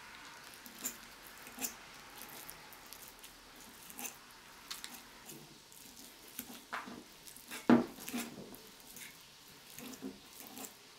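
A metal fork mashing hard-boiled eggs in a ceramic bowl: irregular soft squishes and scrapes, with the tines clicking against the bowl and one sharper knock about two thirds of the way through.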